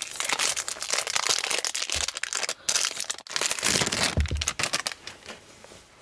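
Plastic packaging of a retail hard drive crinkling and rustling as the drive is unwrapped by hand. The crackling is dense at first and dies away near the end.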